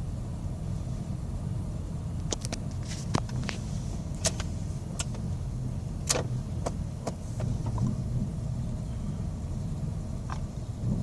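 2001 Mazda Tribute engine idling roughly, a steady low rumble, with a scatter of sharp clicks through the middle. This is the rough idle with RPM surge and loss that the owner is trying to diagnose, still present after he replaced the idle air control valve, EGR valve, fuel filter, air filter and PCV valve.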